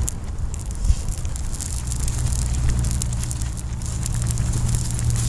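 Open wood campfire burning, its flames crackling with scattered small pops, over a steady low rumble.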